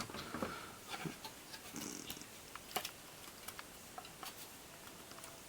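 Faint scattered clicks and light taps of hand tools and fingers working on a graphics card as its screws are taken out.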